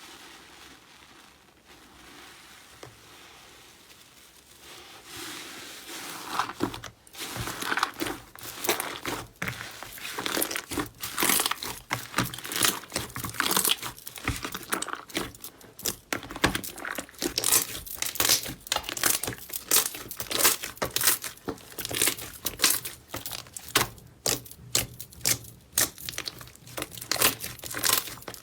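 Hands pressing and squeezing slime, making a fast, dense run of crackles and pops. It starts faint and the crackling grows louder about six seconds in.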